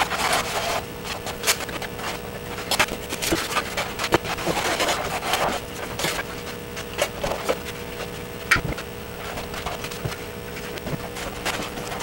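X-Acto knife scratching and carving into pink foam board, with irregular scrapes and small clicks, along with foam pieces being handled and pressed into place.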